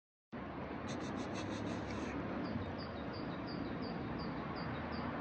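Steady background hiss with high-pitched chirping: a quick run of six or seven chirps about a second in, then single chirps at about three a second.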